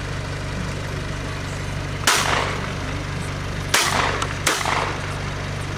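Three shotgun shots: one about two seconds in, then two more about three-quarters of a second apart around four seconds, each trailing off in echo, over a steady low hum.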